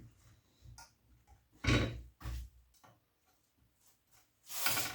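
A few separate knocks and clicks as a heavy brass scrap piece is handled and set in a bench vise, with a louder clunk a little under two seconds in.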